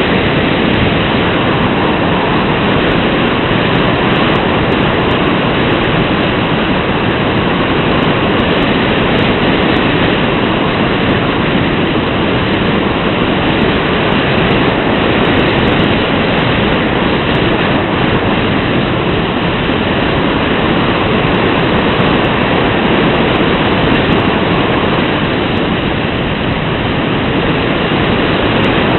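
Steady rushing wind noise on the microphone, with no engine tone or distinct events.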